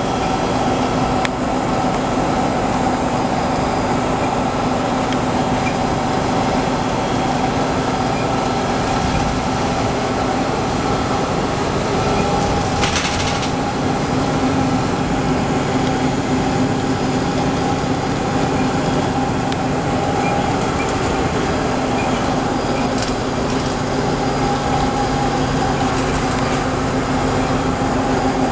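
Neoplan Jumbocruiser articulated double-decker bus cruising at speed, heard inside its upper-deck cabin: a steady drone of engine hum and road noise. A brief hiss comes about halfway through.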